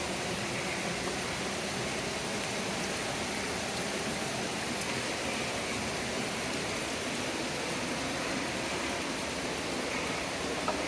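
Steady, even hiss of water with no breaks, from the rain and the wet ravine.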